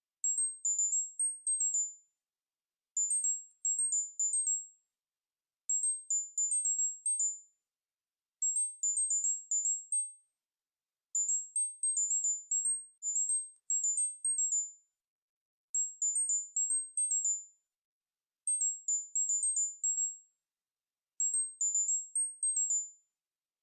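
Short high-pitched tones used as a tinnitus-masking sound, played in quick runs of six to eight notes that step up and down in pitch. Each run lasts about a second and a half and is separated from the next by silence, repeating roughly every three seconds, about nine times.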